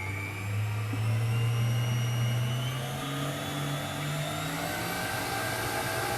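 Electric mixer motor running steadily at speed, beating the aquafaba souffle mixture.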